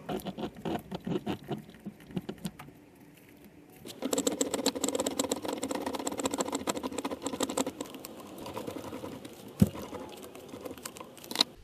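Rapid metallic clicking and rattling of hand-tool work on tie rod parts: scattered clicks at first, then from about four seconds in a dense fast ticking for several seconds, and a single sharp knock near the end.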